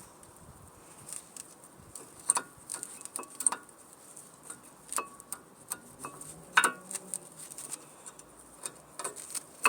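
Brake pad being worked into the caliper carrier and its clips: irregular metallic clicks and taps, some with a short ring, as the pad slots into place.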